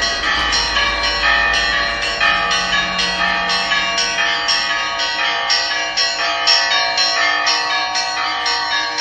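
A peal of Russian Orthodox church bells: several bells of different pitches ringing together, the small high bells struck over and over in a quick pattern, a few strikes a second, while the lower bells hum on underneath.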